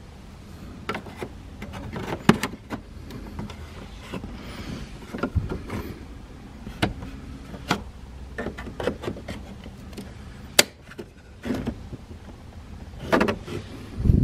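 Irregular clicks, knocks and rubs of plastic steering-column trim and the turn signal switch being worked by hand to free them, heard over a low steady hum.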